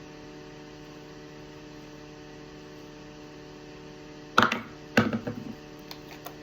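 Steady electrical mains hum, then two sharp knocks about half a second apart a little past halfway, each with a brief rattle after it.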